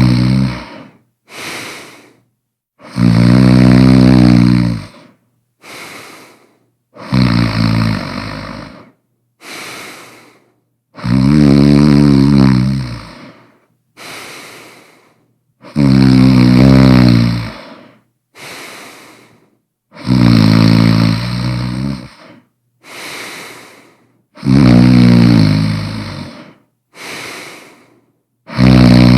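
A person snoring loudly and regularly. About every four seconds there is a loud, low snore lasting about two seconds, followed by a shorter, quieter breath.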